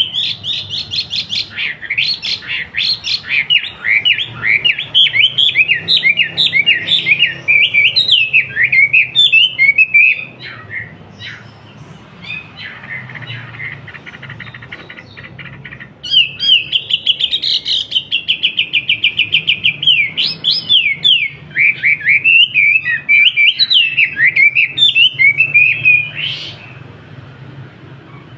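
A wambi songbird singing in two long bouts of rapid, repeated high notes and quick sweeping trills, with a quieter pause of about five seconds between them. A low steady hum runs underneath.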